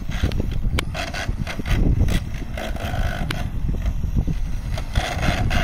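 Wind rumbling on the microphone, with short bursts of a distant RC monster truck's electric motor whining about a second in, around three seconds, and near the end.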